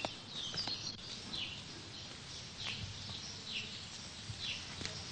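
Outdoor birdsong: a small bird repeating short falling chirps about once a second over a faint steady hiss.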